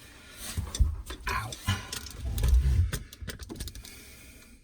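Handling noise of an electrical wall socket being fitted: a run of small clicks, scrapes and knocks of plastic and copper wire, with a few dull thumps, as the wires are tucked into the back box and the socket plate is pushed in.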